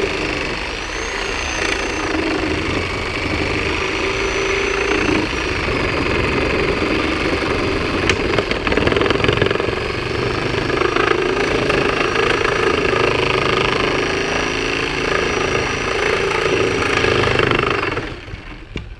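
Skil 7.5-amp corded reciprocating saw with a Milwaukee nail-embedded wood-cutting blade running under load, sawing through the nails between pallet deck boards and a stringer. It runs continuously with a high motor whine that shifts a little in pitch, then stops abruptly near the end.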